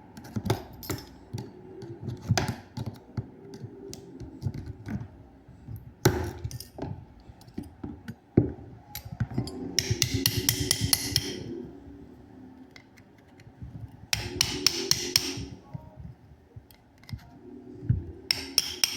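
Hand-tool work on a small electric fan motor: repeated metal knocks, taps and clicks as an old sleeve bushing is worked out of its housing. There are three short bursts of a whirring, rattling machine sound, two in the middle and one near the end.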